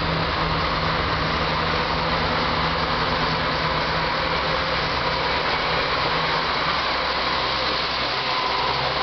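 JR Kyushu KiHa 147 diesel railcar pulling away from the platform and passing close by, its diesel engine running with a steady low drone. The low note drops away about seven seconds in as the cars roll past.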